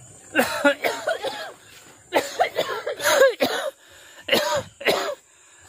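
A man coughing in three fits, each a string of several coughs with a strained, voiced edge.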